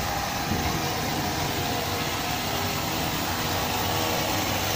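Steady outdoor city background noise: an even hiss and low hum with no distinct events.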